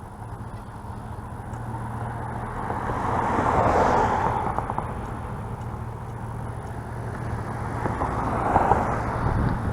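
A vehicle engine idling with a steady low hum, with a broad rush of noise that swells and fades twice, about four seconds in and again near the end.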